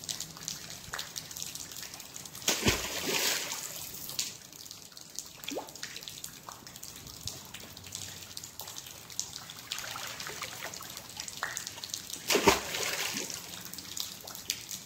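A heavy fishing magnet on a rope splashing into a river twice, about two and a half seconds in and again near the end, each with a low thud. Between the splashes, water trickles and drips as the wet rope is hauled back in.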